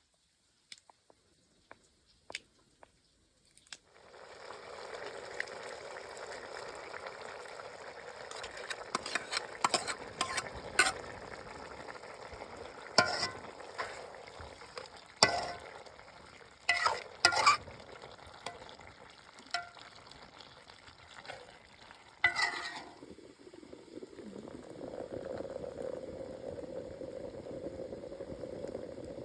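Food frying in a pan: a steady sizzle starts about four seconds in, broken by sharp scrapes and clicks of a utensil stirring against the pan. Near the end the sizzle gives way to a lower, steadier bubbling.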